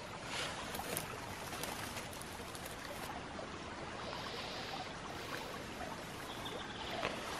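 A steady rushing background noise, with faint rustles and small ticks of grass and leaf litter as a cep mushroom is parted from the grass and cut from the ground with a knife.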